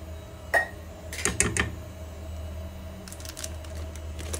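A few short clicks and scrapes of a measuring spoon and a mesh sieve being handled while sifting baking ingredients, in small groups about half a second in, just after a second and around three seconds, over a low steady hum.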